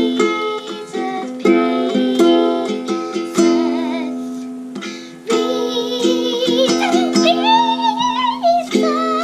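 Background music with plucked strings playing repeated notes. A wavering melody line comes in about seven seconds in.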